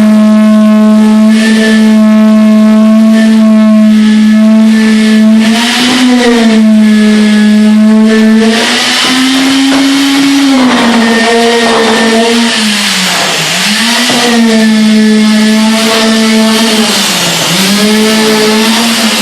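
Concrete vibrator running steadily with a loud, high-pitched hum. Its pitch sags briefly about three times and rises once as the load on it changes. It is consolidating freshly placed concrete around the reinforcing steel so that no honeycombs or cold joints form.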